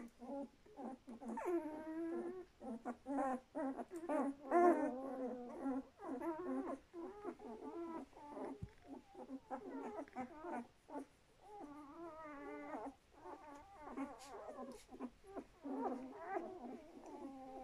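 A litter of one-week-old puppies whimpering and squeaking, many short, whiny calls one after another with a few gaps between them.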